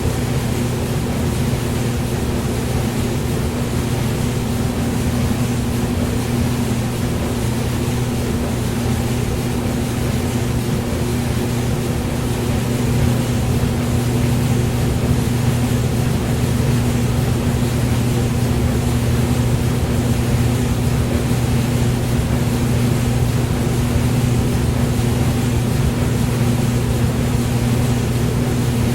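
Hair dryer running steadily: a constant rush of air over a low motor hum.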